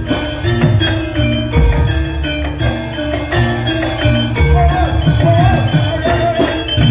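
Javanese gamelan music for dance: bronze metallophones striking a running pattern of ringing notes over drum strokes. About four and a half seconds in, a wavering held note joins the ensemble.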